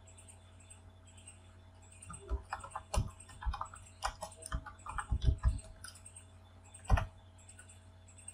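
Computer keyboard typing: a quick run of key presses starting about two seconds in, ending with one louder keystroke near the end, over a faint steady hum.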